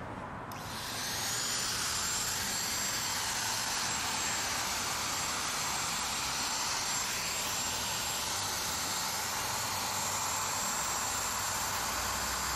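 Electric plunge router switched on about half a second in: the motor whine rises as it spins up, then holds steady as a high whine at full speed.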